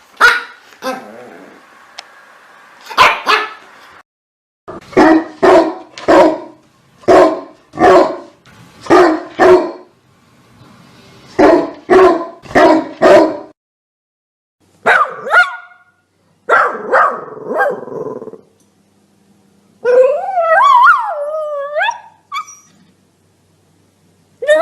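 Dogs barking: runs of sharp single barks about one a second, broken by short silent gaps. Near the end a dog gives a long wavering cry, its pitch rising and falling.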